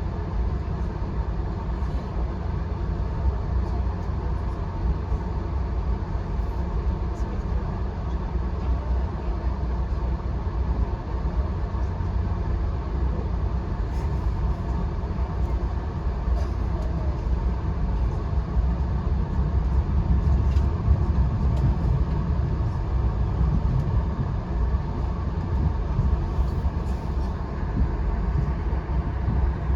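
Steady low rumble of a VIA Rail passenger train riding along the track, heard from inside the coach, with a few faint ticks over it.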